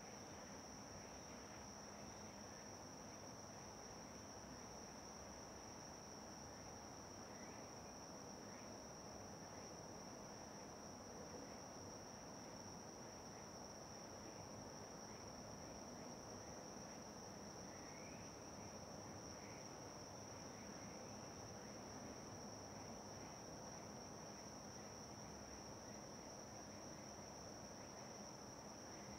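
Faint, steady high-pitched chorus of crickets, with a few fainter scattered chirps lower down.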